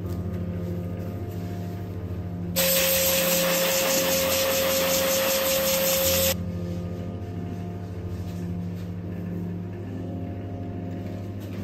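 A handheld blow dryer blowing on a wet puppy's coat after a bath. It switches on suddenly about two and a half seconds in, runs loudly with a steady whine for about four seconds, then cuts off. A steady low hum runs underneath throughout.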